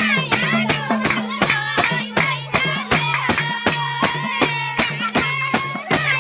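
Nepali Magar folk song in the thumke bhaka style: a voice sings a bending melody over a steady beat of jingling percussion strikes, about two to three a second, with low drum tones alternating between two pitches.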